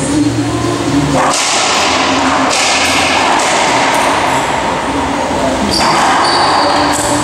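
Racquetball rally: the ball striking racquets and the court walls, with the hits echoing in the enclosed court over a loud steady hiss.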